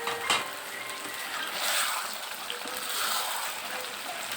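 A sharp knock about a third of a second in, then a sizzling hiss that swells and fades a few times, as fried potatoes are added to chicken curry cooking in the pot.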